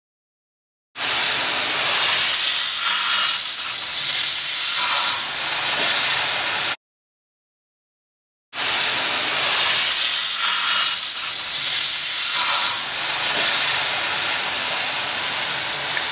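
Sprayway Clean Jet 100 compressed-gas duster blowing through its extension straw: two long, loud hissing sprays, the first about six seconds long and the second starting after a pause of under two seconds.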